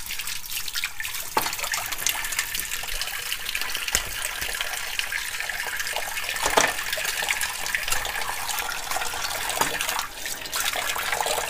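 Tap running steadily into a sink, water splashing over a chicken carcass being gutted beneath it, with a few brief knocks from handling.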